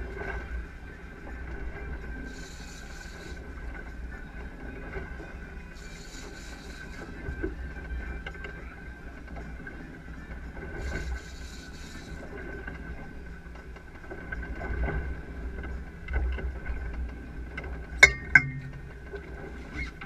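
Boat engine running steadily, a low rumble with a steady high tone, over wind and water noise. Two sharp knocks about two seconds before the end are the loudest sounds.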